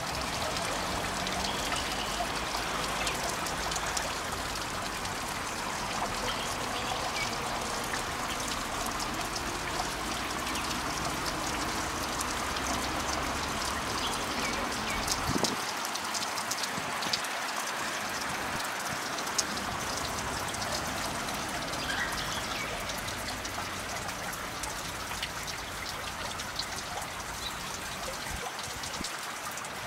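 Water trickling and splashing steadily in a small fountain.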